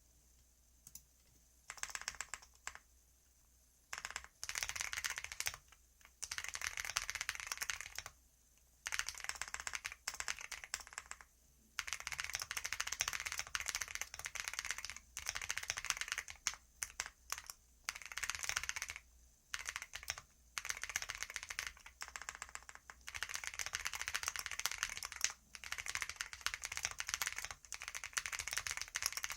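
Computer keyboard being typed on quickly: rapid key clicks in bursts of a few seconds, broken by short pauses.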